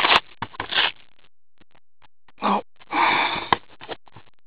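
Trading-card packs and their foil wrappers handled and crinkled in gloved hands: a few short rustles near the start and a longer crinkling burst about three seconds in.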